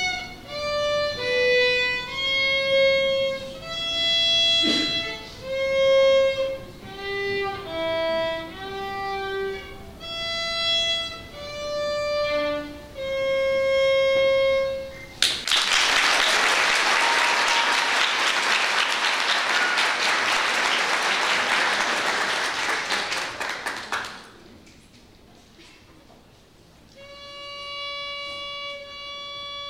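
Solo violin playing a melody of single bowed notes. About halfway through the playing stops and applause follows for several seconds, then after a short lull the violin starts again near the end.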